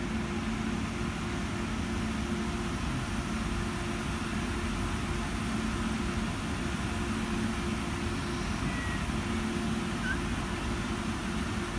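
Renfe S-130 Alvia (Talgo 250) train rolling slowly past at close range: a steady rumble with a low, two-note hum. Two brief high squeaks near the end.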